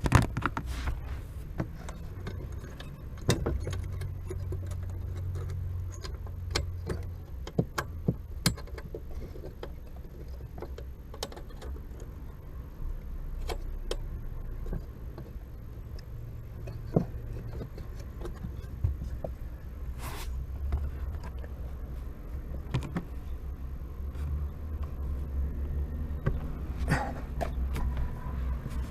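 Scattered metallic clicks, clinks and knocks of hands and tools working on a car's clutch pedal assembly and cable under the dashboard, over a steady low rumble.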